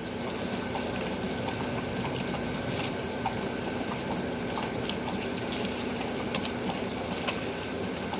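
Steady rain falling: a constant hiss dotted with scattered ticks of drops.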